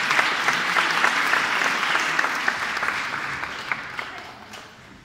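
Audience applauding: dense clapping that gradually thins and dies away over the last couple of seconds.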